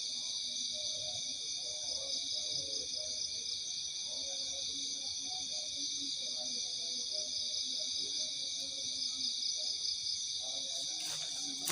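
Forest insects at night keeping up a steady, shrill chorus in several high-pitched layers, with fainter, lower chirping calls underneath. Near the end, footsteps start to come in.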